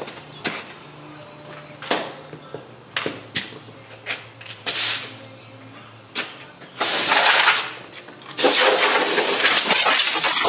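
A few clanks and knocks as steel and tools are handled, then a handheld power tool cutting steel: a short burst of harsh hissing noise about seven seconds in, then a steady loud hissing cut from about eight and a half seconds on.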